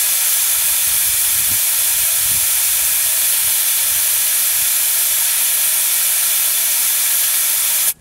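Air hissing steadily out of a 4WD tyre through an ARB E-Z Deflator with the valve core removed, as the tyre is let down for off-road driving. The loud hiss stops abruptly near the end.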